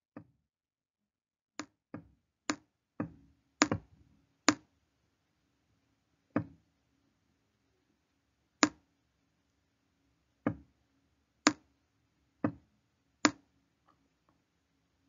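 Sharp taps of a stylus on a tablet screen as a word is handwritten, about fourteen at irregular spacing: a quick cluster in the first few seconds, then about one a second.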